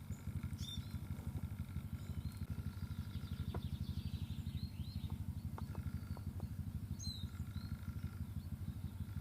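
Small songbirds chirping and twittering in short high calls and trills, with a busier burst a few seconds in and another call about seven seconds in. Under them, and louder, runs a fast, even, low throbbing.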